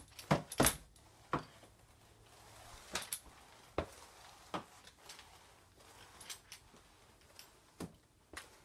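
A flat-head spray mop being pushed and turned over a hardwood floor: scattered sharp clicks and knocks from the mop's plastic head and handle, over a faint swish of the pad on the boards.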